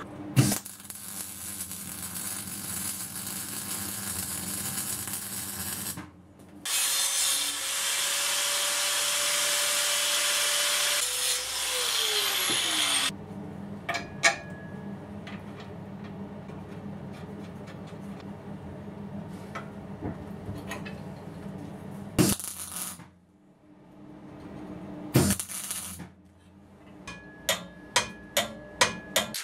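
An electric power tool runs and then works steel, louder for several seconds as it cuts. Its motor then winds down with a falling whine. After a quieter stretch come two sharp knocks and, near the end, a quick run of light taps on steel.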